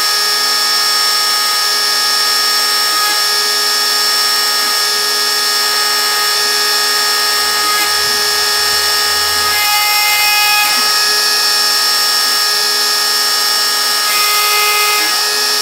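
Shapeoko 3 XL CNC router's spindle running with a steady high whine as a 90-degree V-bit engraves letters into pine. A lower hum comes and goes as the head moves between strokes, and the tone shifts briefly about ten seconds in and again near the end.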